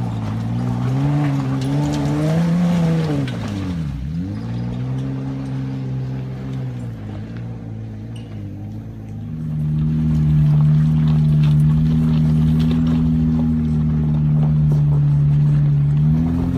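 Jeep engine working on a rocky off-road trail. The revs rise and fall, drop sharply and pick up again about four seconds in, then hold steady and louder from about halfway through.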